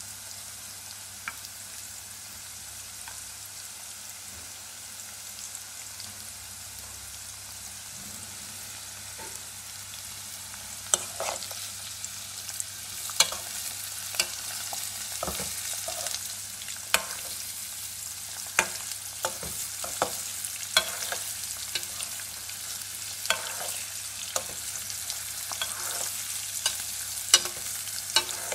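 Vegetable strips sizzling in hot oil in an aluminium karahi: a steady hiss that grows louder about ten seconds in. From then on a spatula stirs them, knocking sharply against the side of the pan again and again.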